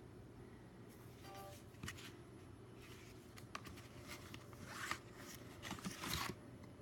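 Quiet handling noises: scattered light clicks and taps with brief rustles of packaging, a little louder about five and six seconds in, as the unboxed items, a set of 3D coasters, are handled.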